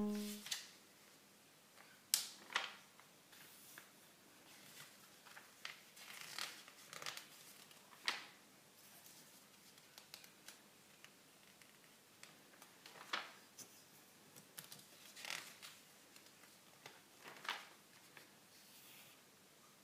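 Glossy magazine pages being turned by hand, a faint series of quick paper swishes and rustles spaced a few seconds apart, with softer handling of the paper between them. The last notes of background music fade out at the very start.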